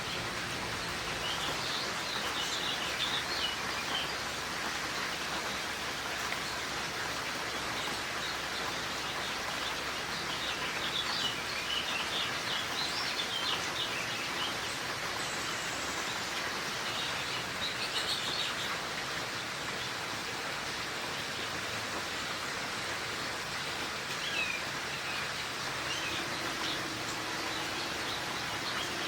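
Steady rain shower falling, with small songbirds chirping in short clusters of high calls several times.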